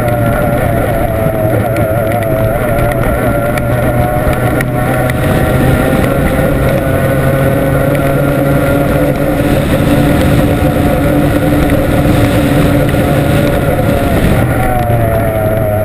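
Formula 1 racing tunnel boat's outboard engine running hard at speed over a steady rushing noise, its pitch wavering slightly, easing a little in the middle and climbing again near the end.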